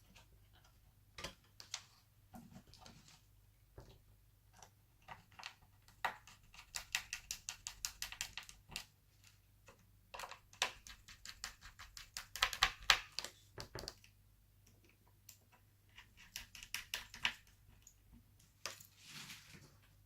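Runs of small, rapid clicks and taps from a hard drive and screws being handled and fitted into a laptop chassis.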